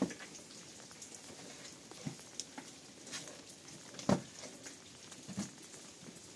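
Light rain falling steadily, with scattered scuffs and taps of bare feet and hands climbing over rock. The sharpest scuff comes about four seconds in.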